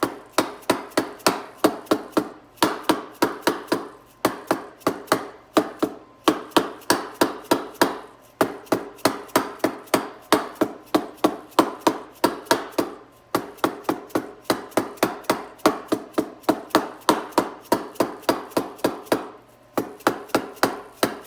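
Small 1-pound dead blow hammer lightly tapping a 4L60E transmission's front pump down into the case until it seats: a steady run of light knocks, about three or four a second, broken by a few short pauses.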